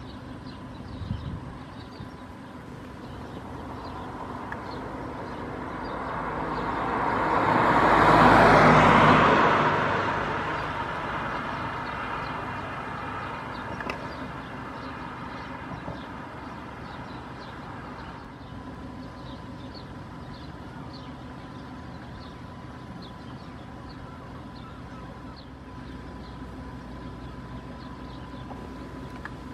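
Road traffic at a city roadside. One vehicle passes close by, building up, peaking about a third of the way in, then fading away, over a steady hum of background traffic.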